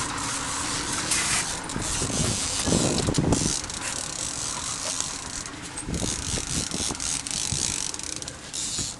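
Fishing reel being cranked, its gears and clicker ratcheting as a hooked fish is reeled in toward the boat, against a steady rush of wind and sea noise.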